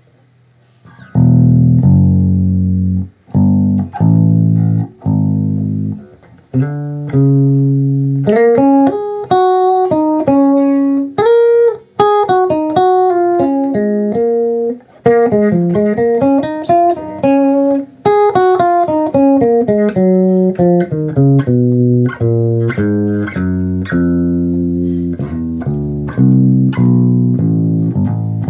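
Electric bass guitar played through a small Ashdown Superfly combo amp with a single 8-inch speaker: separate plucked notes, low at first, then a run of higher melodic notes in the middle, and then back down to low notes.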